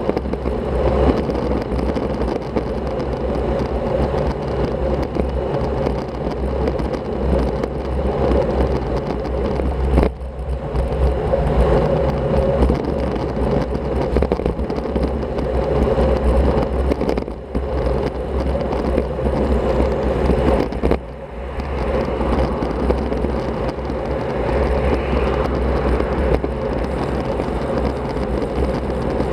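Steady wind and road noise from riding a road bicycle, picked up by an action camera's microphone, with a low rumble throughout; it drops briefly three times, about 10, 17 and 21 seconds in.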